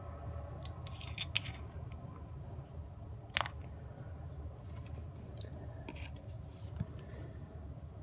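A few light clicks and taps from handling small objects at a workbench, the sharpest a single click about three and a half seconds in, over a low steady hum.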